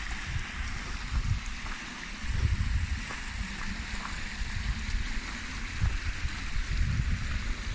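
Steady rushing of a mountain stream and waterfall, with gusty wind rumbling on the microphone.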